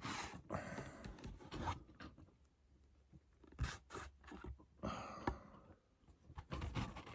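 Faint rustling and scraping of a cardboard box set and its slipcover being handled, with a few light taps and knocks of the card.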